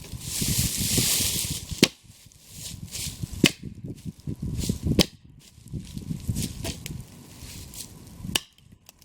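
Wood being chopped: a few sharp, uneven blows about a second or more apart. There is a brief hissing rush in the first two seconds, over a low rumbling background.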